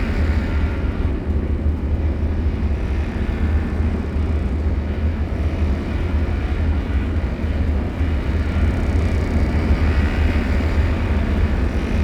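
Horror ambience drone: a deep, steady rumble with a faint higher hiss that swells up again near the end.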